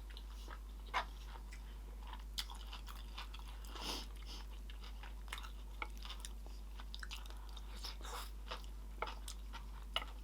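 Close-mic'd chewing of a sushi roll: wet mouth clicks and soft crunches scattered throughout, with one sharper crunch about a second in.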